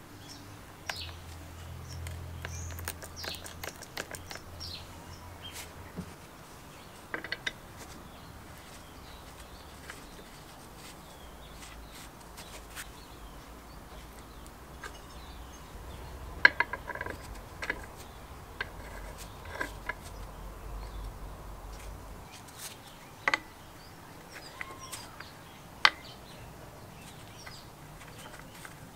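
Greased steel gears of a manual chain hoist's gearbox being fitted onto their shafts by hand: scattered light metallic clicks and clinks, with sharper clinks that ring briefly about 16 seconds in and again near 23 and 26 seconds.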